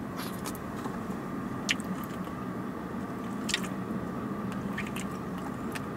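A person chewing a mouthful of food close to the microphone, with a couple of short sharp clicks, one under two seconds in and one about three and a half seconds in, over a steady low hum.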